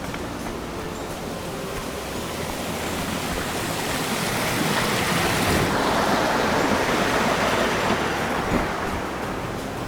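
Rushing water of a mountain stream, a steady noise that swells louder through the middle and eases off toward the end.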